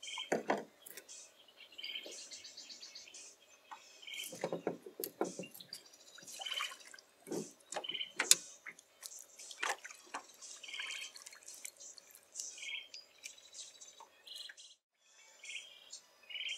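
Irregular splashes and drips of lake water as a man wading waist-deep moves and handles a fish, the loudest splash a little past the middle. Marsh birds in the reeds chirp over it in short calls every second or two, with higher buzzy trills between.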